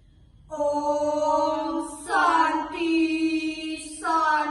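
A young woman's solo voice chanting a Sanskrit sloka in the Balinese melodic style. It begins about half a second in with long, steady held notes, starting a new phrase roughly every two seconds.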